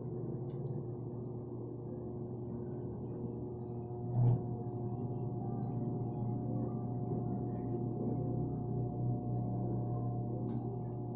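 Automatic washing machine running with a steady hum, and one louder thump about four seconds in.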